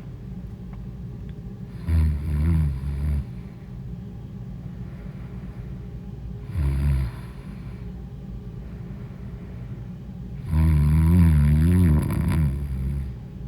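A woman snoring in her sleep: three loud, low-pitched snores, the first lasting over a second, a short one midway, and a longer one of about two and a half seconds near the end.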